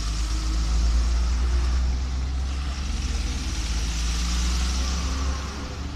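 A vehicle engine running steadily with a deep rumble, under a wash of traffic or road noise.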